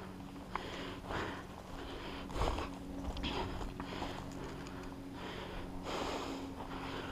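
Close-up breathing of the camera wearer, with sniffs through the nose coming about once a second, over a faint steady hum.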